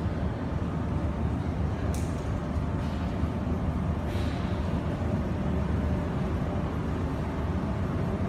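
Steady low rumble of factory background noise, with two short hisses about two and four seconds in.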